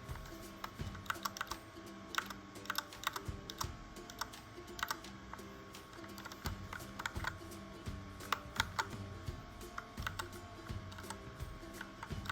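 Typing on a Royal Kludge RK61 60% mechanical keyboard: a quick, uneven run of sharp key clicks, with faint background music under it.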